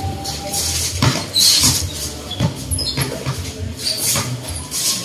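Sneakers squeaking on a hard court floor during a basketball game: short high squeals scattered throughout, mixed with several dull thuds of feet or the ball.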